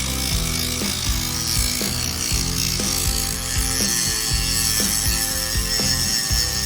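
Parkside PWSA 20-Li B3 cordless angle grinder running and working against material, a steady hissing grind, over background music with a regular beat.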